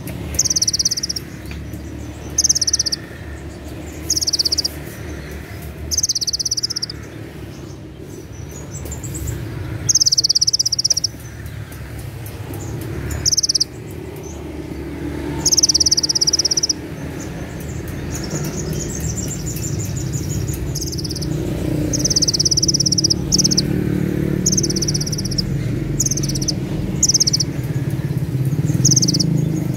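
Caged male sunbird (kolibri ninja) singing. It repeats short, shrill, high trilled phrases, about fifteen of them at one to two second intervals: the 'cililin' shot phrases that contest judges prize. A steady low rumble runs beneath, louder in the second half.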